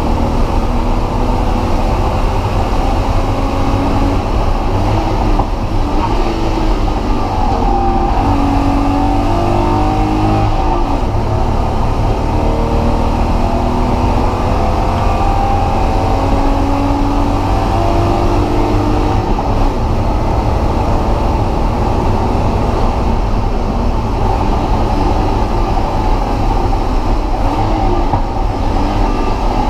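BMW E36 M3's straight-six engine running hard on a race track, its pitch rising and falling as it revs, under a steady heavy rumble of road and wind noise.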